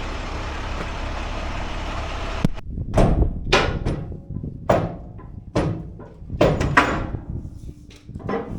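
A steady running noise cuts off suddenly about two and a half seconds in. A series of irregular metal clanks and knocks with short ringing follows, from a heavy steel winch being shifted into place with a pry bar.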